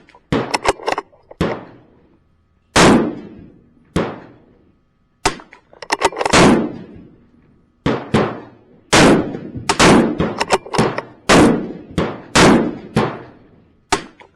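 A string of .22 LR rimfire rifle shots, about twenty sharp cracks fired at irregular spacing, some in quick bunches. Each has a short echoing tail.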